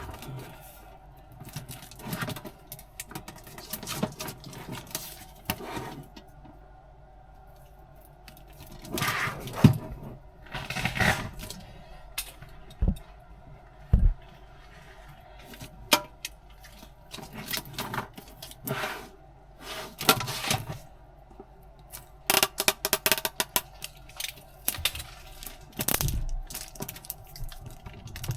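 A metal Pokemon tin and its packaging being handled and opened: irregular clicks, knocks, scrapes and rustles, with a quick run of rattling clicks near the end.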